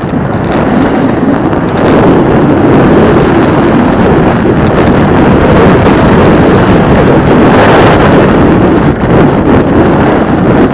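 Loud rush of wind buffeting the microphone of a camera carried by a snowboarder riding downhill, with the board's hiss on the snow blended in. It grows louder about two seconds in and stays high.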